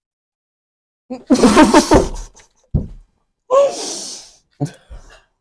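Breathy vocal sounds from a person: a loud, short exclamation about a second in, then a sigh-like exhale, with a soft knock between them and a few light clicks near the end.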